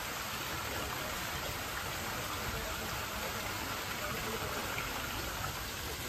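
Steady rush of running water, with no breaks or changes.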